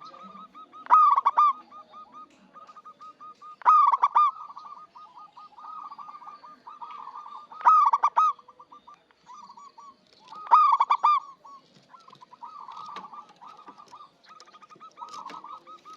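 Zebra dove (perkutut) singing: loud repeated cooing phrases about every three seconds, with softer quick cooing notes running between them. Used as a lure song to call in wild doves.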